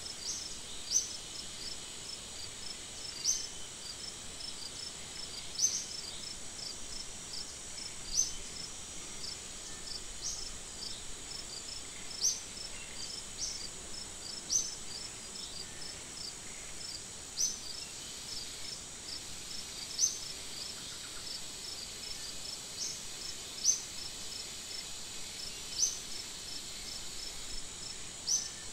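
A steady, high-pitched insect chorus, with a fast run of faint chirps and a sharper, louder chirp every two to three seconds.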